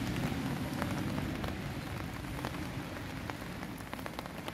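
Steady rain falling, with scattered sharp ticks of drops landing close by.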